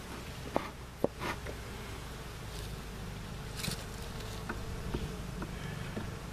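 Honeybees buzzing steadily around an opened hive. A few sharp knocks sound about half a second and a second in.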